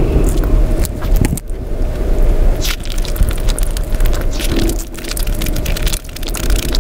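Close-miked eating sounds: fingers squishing and mixing chicken biryani rice, with wet crackles and many small clicks.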